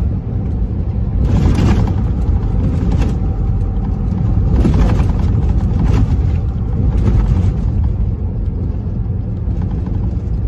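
Semi truck driving at speed, heard from inside the cab: a steady low engine and road rumble. Several brief surges of hiss rise and fall through it.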